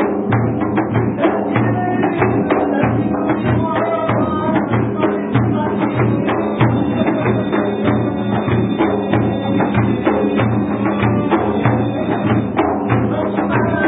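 Sufi dhikr music for the whirling: a steady, even drum beat with sharp clicking strokes, over a sustained pitched drone.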